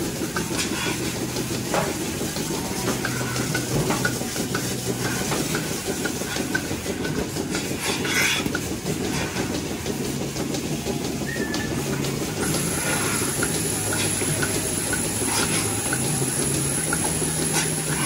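Milking parlour machinery running: a steady low hum and hiss from the milking system, with scattered clicks and clanks as milking clusters are handled and attached to cows' teats. A thin high whine joins about two-thirds of the way through.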